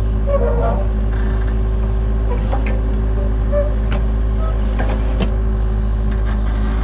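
Excavator diesel engine running steadily at a constant speed, with a few brief knocks and scrapes as the steel bucket works through wet sand.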